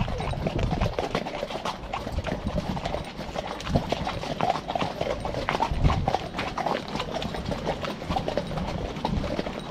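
Hooves of several ponies walking in single file on a wet, muddy lane: a steady, irregular clip-clop of many overlapping hoof falls.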